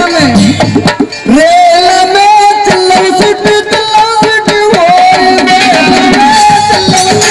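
Live rasiya folk music over a PA: a steady hand-drum beat under a long held, slightly wavering melody line, which drops out briefly about a second in and then resumes.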